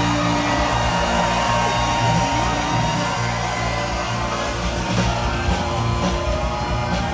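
Live band playing a rock-and-roll polka number, with saxophone, trumpets, drum kit and keyboard, loud and continuous.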